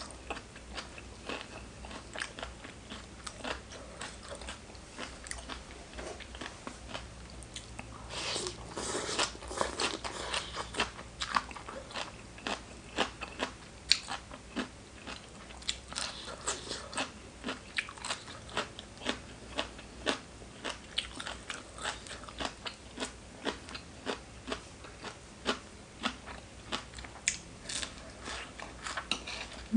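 Close-up eating sounds: a person biting and chewing crisp food, with crunches coming one after another at a steady pace. The crunching is denser and louder for a few seconds starting about eight seconds in.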